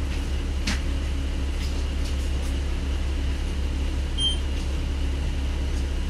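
Isuzu Cubic city bus's V8 diesel engine running at a steady low rumble, heard from inside the bus, with no revving. A click comes shortly after the start and a short high beep about four seconds in.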